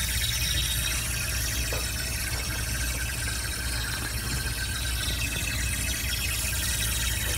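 Steady hiss of refrigerant flowing through the Honda CR-Z's air-conditioning lines after shutdown, with a low steady hum underneath. The hiss is the normal equalizing of pressure from the high side to the low side once the belt-driven compressor stops.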